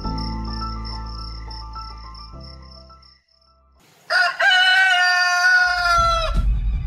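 Crickets chirping in a steady pulse over soft sustained music, both fading out to near silence about three seconds in; then a rooster crows once, a loud call of about two seconds. Music with a heavy low beat comes in near the end.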